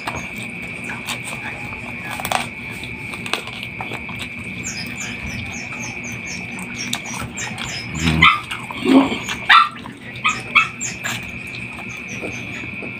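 A dog whimpering and giving several short yelps, mostly in a cluster about two-thirds of the way through, over a constant high-pitched tone in the background. Scattered small clicks of eating by hand run alongside.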